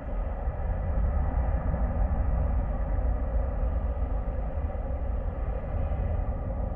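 Jet airliner's engines in reverse thrust after landing: a heavy low rumble with a faint steady whine above it. It builds during the first second, holds, then slowly eases off near the end.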